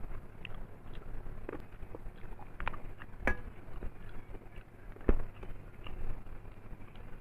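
Eating sounds of rice and mutton curry: chewing with scattered small clicks and crackles, and two sharper clicks, about three and five seconds in.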